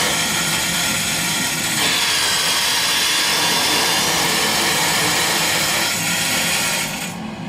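Water rushing through a freshly opened valve and pipes into the water heater as it refills, a loud steady hiss. The hiss drops off sharply near the end.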